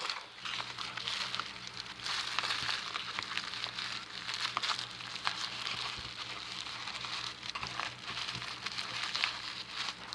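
Steady crackling, rustling noise with many small clicks, over a low steady hum.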